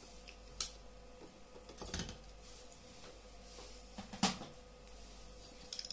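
A few short clicks and knocks of a plastic ear-defender cup and hand tools being handled and set down on a table, the loudest just after four seconds in, over a faint steady hum.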